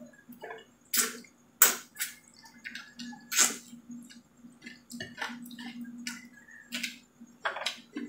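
Close-miked eating sounds: wet lip smacks and mouth clicks from chewing shrimp and sucking sauce off the fingers, in an irregular run of sharp clicks, over a faint steady hum.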